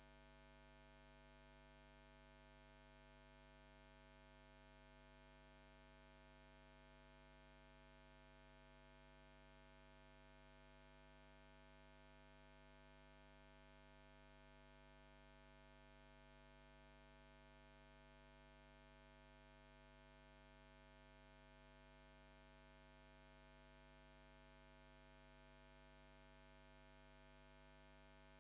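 Near silence: only a faint, unchanging electrical hum and hiss.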